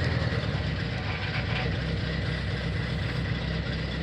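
Truck engine idling steadily right after being started.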